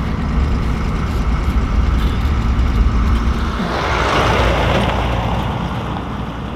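Pickup truck driving, heard first as a steady low engine and road rumble inside the cab. About three and a half seconds in it changes to the truck passing close by outside: a swell of tyre and engine noise that fades as the truck drives away.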